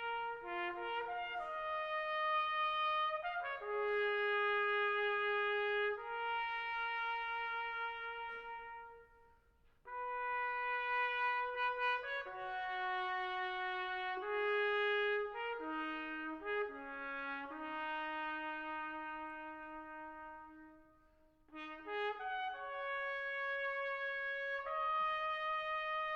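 Slow brass melody, one line of held notes, played in three phrases with short pauses between them.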